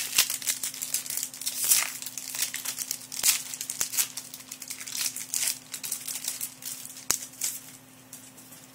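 Foil booster-pack wrappers of Yu-Gi-Oh trading cards crinkling and rustling in the hands in quick, irregular crackles that die down near the end.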